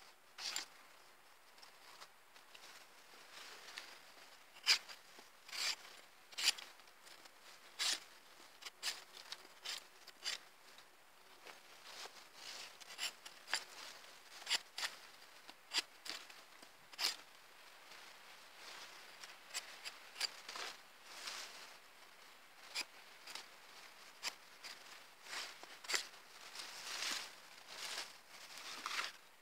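Stainless-steel knife blade shaving and whittling a wooden stick: a long, irregular run of short scraping cuts, some strokes much louder than others.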